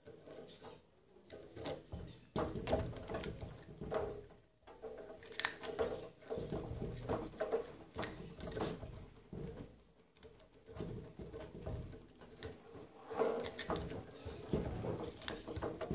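Heavy #12 insulated copper wire being pulled through and wound around a microwave oven transformer's core by hand. The wire rustles and scrapes, and there are irregular knocks as the wire and the transformer bump against the wooden bench.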